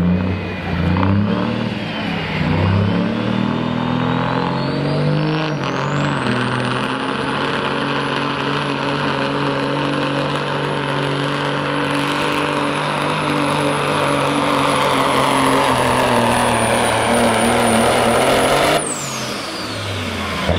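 Pro Stock semi truck diesel engine under full load pulling a weight-transfer sled. A high turbocharger whistle climbs in pitch over the first few seconds and holds a steady high whine. Near the end the engine lets off and the whistle falls away quickly.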